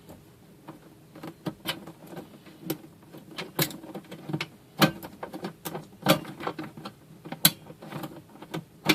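Small cooling fan in a Netgear ProSafe JGS524 24-port gigabit switch running with a steady hum and irregular clicking and rattling. The noise is typical of a possibly bad fan.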